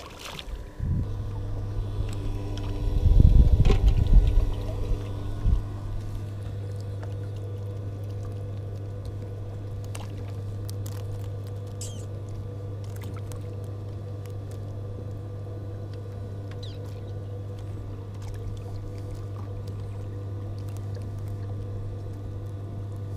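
Steady low hum of a small motor on the boat, starting about a second in, with a loud low rumbling burst from about three to four and a half seconds in and a few light clicks later.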